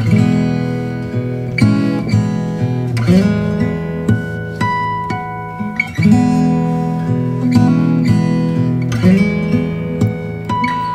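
Background music: acoustic guitar strumming chords, changing every second or two.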